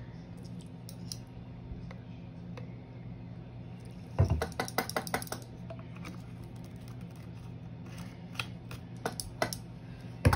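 Metal measuring spoon clinking and tapping against a ceramic bowl while measuring and stirring soy sauce: a quick run of about eight clicks about four seconds in, scattered clicks later, and a louder knock at the very end, over a steady low hum.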